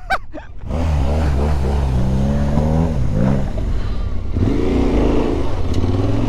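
Yamaha Ténéré 700's parallel-twin engine pulling under changing throttle off-road: after a brief lull it picks up, holds, dips and drops about four seconds in, then revs up again.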